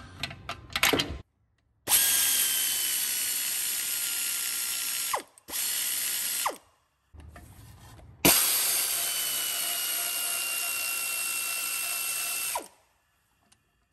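Pneumatic air ratchet spinning off the 10 mm exhaust manifold nuts. It runs three times: the longest about four seconds and one short, each a steady hissing whir with a high whine that falls slightly. Short silences separate the runs.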